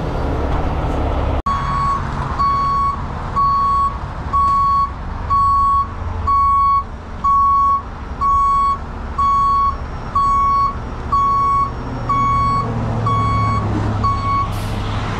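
Heavy truck's backup alarm beeping steadily at one high pitch, about once a second, over a diesel engine running. The alarm stops near the end, and a short hiss of air follows.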